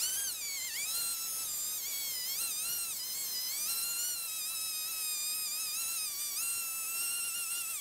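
Husqvarna 372XP two-stroke chainsaw with a 30-inch bar cutting a slab off a pine log in an Alaskan mill. Its engine is heard as a steady, high-pitched whine that dips briefly in pitch several times as it bogs under load. The footage is played fast, which raises the pitch.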